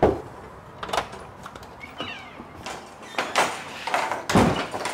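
Wooden workshop door being handled: the last rap of a knock, then the handle rattling, a brief squeak and a series of thuds and steps as the door is opened and shut, the loudest thud near the end.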